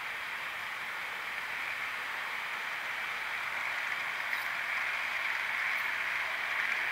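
Märklin H0 freight wagons rolling steadily over C track, an even rolling hiss with a few faint clicks that grows a little louder in the second half.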